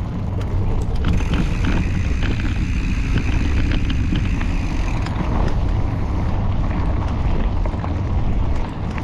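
Mountain bike rolling over rough trail with heavy wind rumble on the microphone and scattered rattling clicks from the bike, plus a thin steady high whine from about one to five seconds in.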